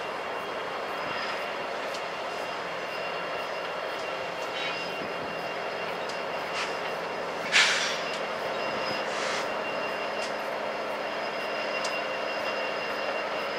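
Freight train's lead diesel locomotives rolling slowly past, a steady engine drone, with one short loud hiss about halfway through.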